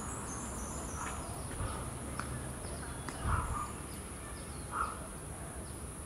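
Steady high-pitched insect drone, with a few faint, short animal calls. The two clearest calls come about three and a half and five seconds in.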